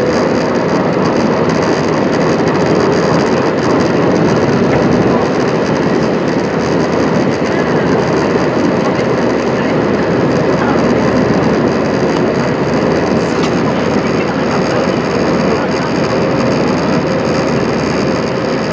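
Steady cabin roar inside an Airbus A320-232 climbing through cloud, heard from a window seat over the wing: its IAE V2500 turbofans running at climb power together with the rush of air over the fuselage, with a faint steady hum under it.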